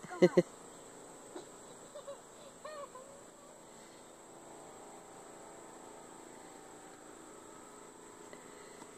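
Steady high-pitched chorus of insects, with two short loud sounds right at the start and a few faint short sounds two to three seconds in.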